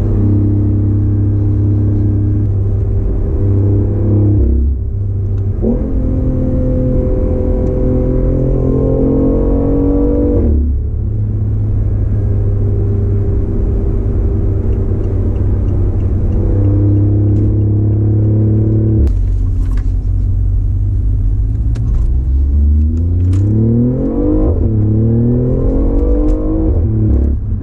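BMW i8's turbocharged 1.5-litre three-cylinder engine through a custom exhaust, heard from inside the cabin at highway speed. It holds a steady drone at cruise, then pulls hard twice, rising in pitch and dropping sharply at each upshift, with a quick run of upshifts near the end.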